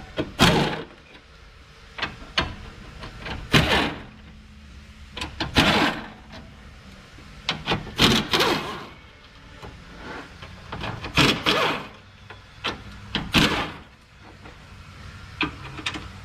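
Short, loud bursts of a power tool, about every two to three seconds, as the 10 mm bolts over the radiator are spun out.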